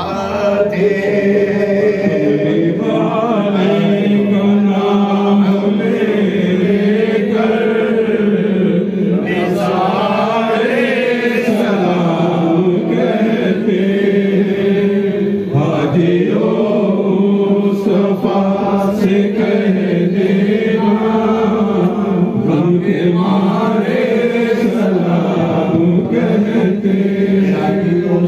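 Men chanting a Sufi devotional hymn in Urdu, led over a microphone, unaccompanied, in long held melodic lines.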